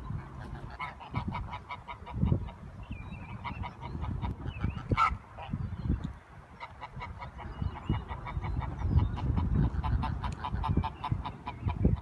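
Waterfowl calling in several quick runs of short honks, each run about a second long, over irregular low rumbling.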